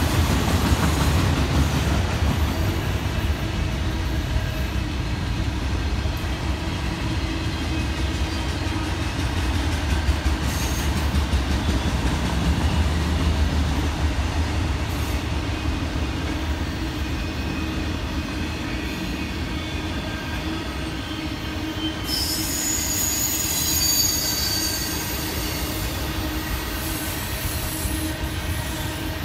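Freight train rolling past with a steady rumble of wheels on rail. From about three quarters of the way through, high-pitched wheel squeal sets in.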